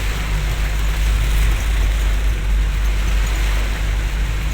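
Heavy rain falling, a steady hiss over a constant low vehicle rumble.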